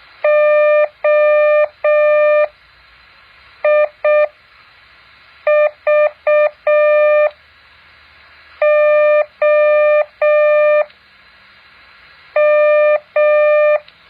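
Morse code practice tone keyed slowly: a steady beep sounds in long dashes and short dots with long pauses between letters. The letters sent are O, I, V, O, M, one at a time.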